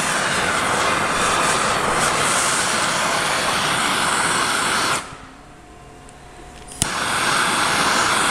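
Hand-held propane torch burning with a steady hiss while it heats a steel drill chuck. The flame noise stops about five seconds in, and after a sharp click the torch burns again.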